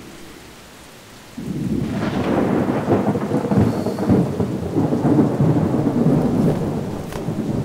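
Heavy rain with rumbling thunder, coming in suddenly about a second and a half in and rising and falling in strength.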